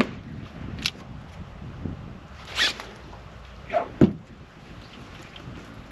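Fishing reel and rod handling during a retrieve and hookset: a few short scrapes and ticks, with the loudest, a low thump, about four seconds in as a fish takes the lure and the rod loads up.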